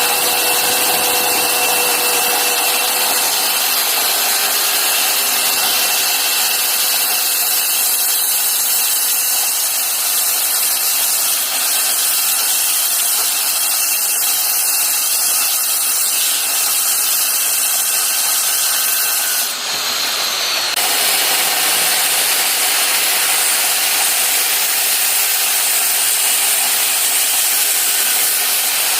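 A power tool cutting into wood, running steadily, with a brief change in the sound about twenty seconds in.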